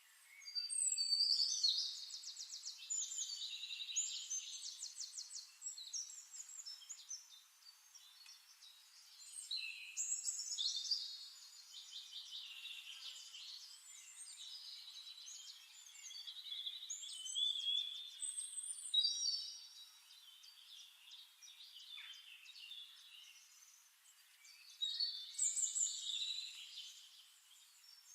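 Songbird singing long, rapid warbling and trilling phrases, high-pitched, in four bouts starting about a second in, around 9 s, around 16 s and near the end.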